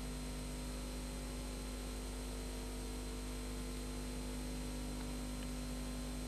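Steady hiss with a constant low electrical hum and no other sound: the background noise of the recording.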